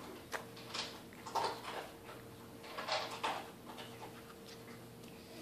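A baby making several short, breathy fussing and mouth sounds while tasting a spoonful of food, then going quieter.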